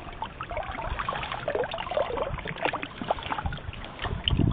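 Water trickling and splashing off a net shrimp trap as it is lifted out of the river, with irregular handling knocks and a dull thump near the end.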